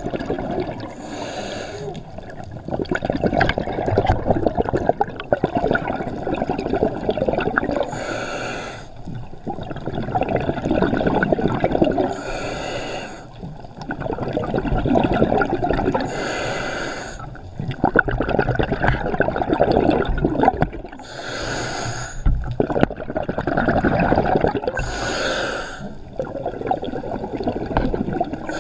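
Scuba diver's breathing through a regulator, heard underwater: a short hiss on each inhale, six times in slow rhythm, with bubbling from the exhaled air in between.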